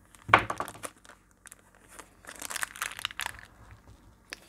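Clear plastic zip bag crinkling as hands handle it and pull it open, in two bouts: one about half a second in, a longer one around two to three seconds in.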